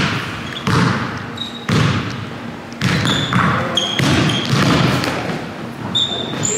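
Basketball dribbled on a hardwood gym floor, about one bounce a second, each bounce echoing in the hall, with several short sneaker squeaks as the player drives to the basket.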